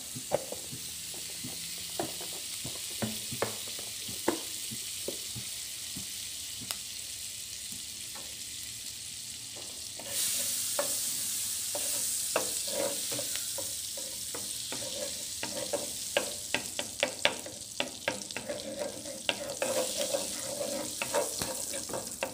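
Butter melting and sizzling in a non-stick wok while a wooden spatula stirs it, tapping and scraping against the pan. The sizzle turns louder about ten seconds in, and the spatula strokes come quicker near the end as the butter foams.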